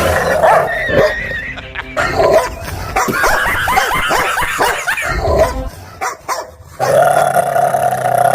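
A dog barking and growling, with a run of quick, high yips in the middle.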